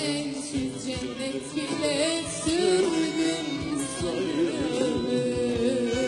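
Live Turkish song: a woman's voice singing with a seated ensemble of string players, with a steady percussion beat underneath.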